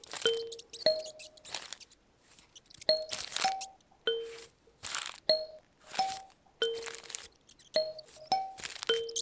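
Kalimba plucking short, quickly fading notes in little clusters, with bursts of paper rustling layered in among them.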